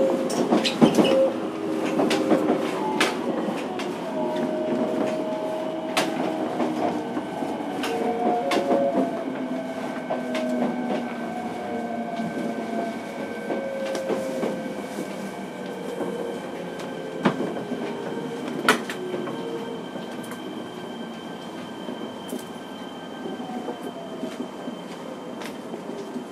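Cabin sound of a Fukuoka City Subway 1000 series train converted to VVVF inverter drive, slowing: the inverter whine sounds in several tones that fall in pitch, over wheel clicks at the rail joints and a few sharp knocks. The running sound grows quieter toward the end as the train slows.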